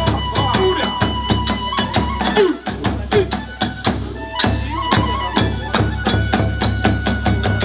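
Kagura hayashi accompaniment: fast, steady strokes of drums and small hand cymbals, with a flute holding long notes above them.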